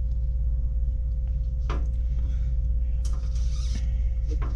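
Light handling noise from a plastic-bodied shotgun microphone being turned over in the hands: a few soft clicks and a brief rustle about three seconds in. Under it runs a steady low hum with a faint steady tone.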